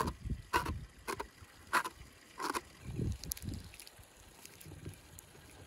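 About five short, crisp rustles as a knife works at the paper covering a clay jar's mouth, then soft, low thuds as a ball of dough is pressed onto the jar's top.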